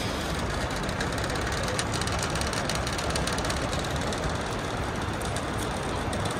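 Steady background din of a large airport terminal hall, an even rushing noise with faint scattered clicks.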